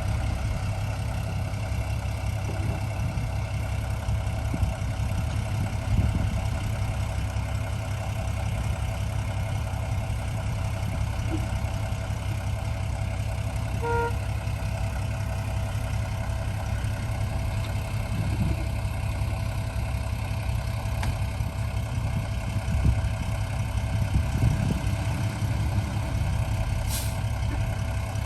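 Heavy diesel engines of earthmoving machinery running steadily with a low rumble, with one short beep about halfway through.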